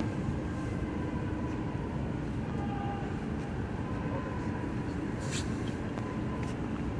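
Steady low rumble of outdoor city background noise, with faint distant voices and a brief hiss about five seconds in.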